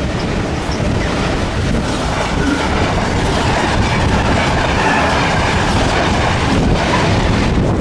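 A passenger train hauled by the steam locomotive 60163 Tornado passing close by at speed, a loud steady rush with the wheels clattering over the rails.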